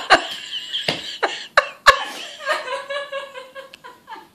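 A woman laughing in short bursts, then a higher, drawn-out stretch of laughter about halfway through that trails off.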